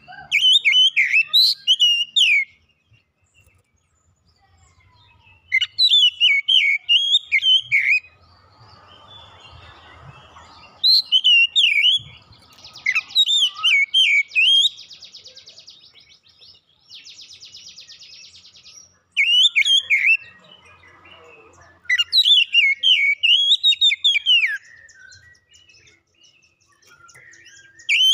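Oriental magpie-robin singing in loud bursts of quick whistled notes that swoop up and down, about six phrases of a few seconds each with pauses between. Two short harsh buzzy rattles come near the middle.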